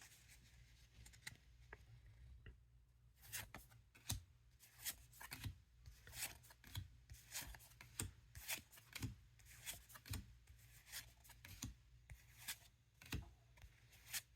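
Trading cards being handled and flipped through one at a time: faint, crisp flicks and slides, about two a second.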